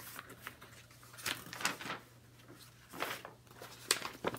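Faint rustling and soft knocks of a picture book being handled as its pages are turned.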